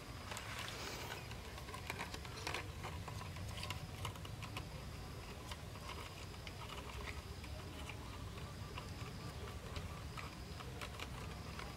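Cord being wrapped and pulled tight around a wooden pole joint, giving irregular small scratching, rustling and clicking sounds, with faint high chirps in the background.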